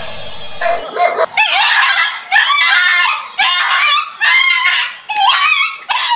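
Small dog barking and yelping over and over in short, high, wavering calls, after a brief rushing noise at the start.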